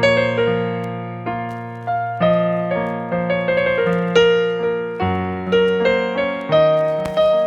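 Yamaha PSR-A5000 arranger keyboard in a piano voice, playing a song melody in the right hand over held bass notes and chords. Each note is struck and then decays.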